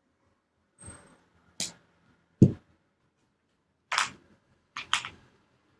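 A handful of short, sharp knocks and clicks at irregular intervals, the loudest a heavy thud about two and a half seconds in.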